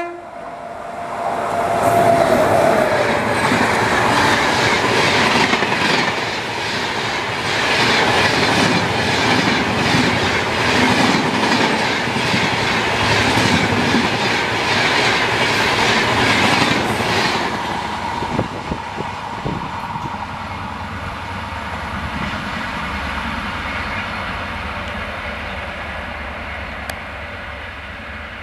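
Express passenger train passing close at speed, its coaches rushing by with a rapid clickety-clack of wheels over rail joints. After about two-thirds of the way through, the sound drops to a quieter, low rumble as the train moves away.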